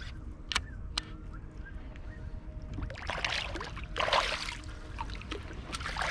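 Water splashing twice against the kayak, about three and four seconds in, as a hooked bass is fought to the boat. A couple of sharp clicks come in the first second.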